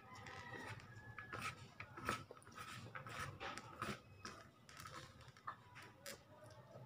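Chewing on soy-sauce-and-oil rice, with fingers working the rice on a plate; a string of short, quiet clicks.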